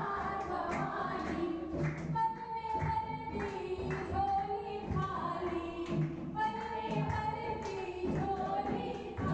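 A group of women singing a Hindu devotional bhajan together, with a dholak drum beating time under the voices.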